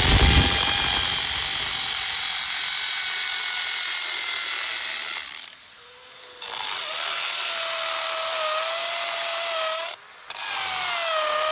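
Craftsman drill on its hammer setting driving a Milwaukee 3/8-inch Shockwave masonry bit into concrete: a steady whine and grinding, stopping for about a second halfway through and again briefly near the end. The bit cuts easily, going through just like butter.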